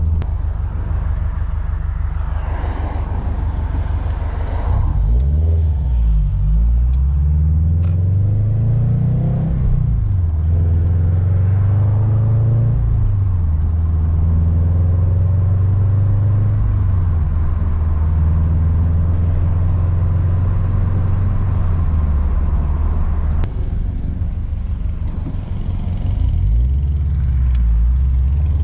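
Sports car's flat-four engine heard from inside the cabin while driving, with road rumble. The engine note rises and falls several times as the car accelerates and shifts, holds steady for a long stretch while cruising, then rises and falls again near the end.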